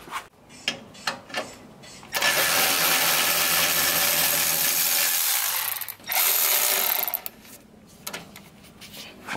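Milwaukee cordless electric ratchet running as it backs out a 12 mm radiator mounting bolt: one run of about three and a half seconds, then a short burst of about a second. A few light clicks and knocks come before and after.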